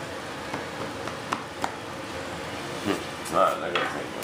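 A few light clicks and taps of wooden flap pieces being handled on a workbench, over a steady background hiss, with a brief murmur of voice about three seconds in.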